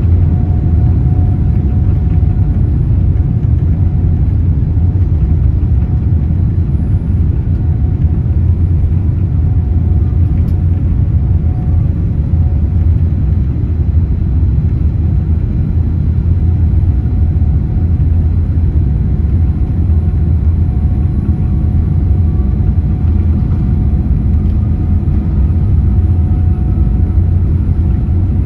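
Jet airliner engines heard as steady cabin noise: a loud, even low rumble with faint whining tones above it, one of which slowly rises in pitch in the second half.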